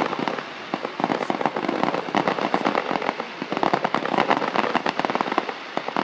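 Fireworks crackling overhead: a dense, unbroken stream of rapid small pops from crackling stars.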